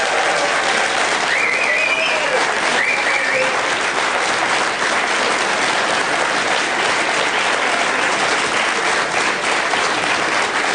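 Studio audience applauding steadily, with a short whoop or whistle rising above the clapping in the first few seconds.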